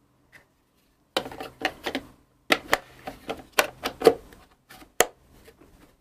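Hard plastic parts of a Bosch bagless vacuum cleaner being fitted together by hand: irregular clicks and rattles as the cone filter goes into the dust container, then a sharp snap about five seconds in as it latches shut.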